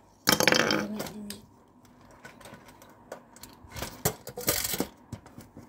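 Plastic clicks, snaps and scrapes of a Transformers Megatron action figure's parts being moved and clicked into place while it is transformed. There is a loud burst of handling noise just after the start, scattered sharp clicks, and a brief louder scrape about four and a half seconds in.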